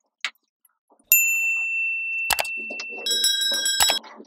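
Sound effects of a YouTube subscribe-and-bell reminder. A click is followed by a single bell-like ring held for about two seconds, then a brighter chime of several notes for about a second, with sharp clicks between and at the end.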